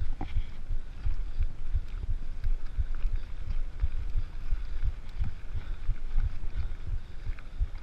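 Mountain bike riding fast over a bumpy dirt singletrack: irregular low thumps, a few a second, as the bike and camera jolt over the trail surface, with tyre noise on the dirt.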